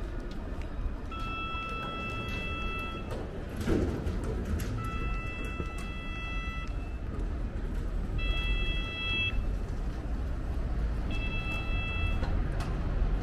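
City street ambience with a low traffic rumble. Over it, a steady electronic-sounding tone of several pitches at once sounds four times, each for one to two seconds, with a few sharp clicks between.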